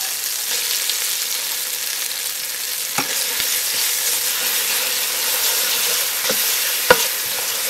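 Chili paste and palm sugar sizzling as they fry in oil in an aluminium pot, stirred with a metal ladle. A few sharp clinks of the ladle against the pot, the loudest near the end.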